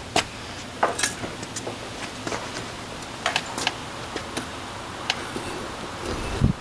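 Scattered light clicks and taps, about eight of them, over a steady low running noise, with a low rumble swelling near the end.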